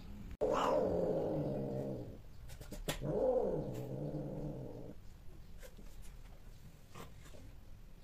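Cat giving two long, low yowls, the first falling in pitch and the second rising then falling: the drawn-out calling of cats at mating.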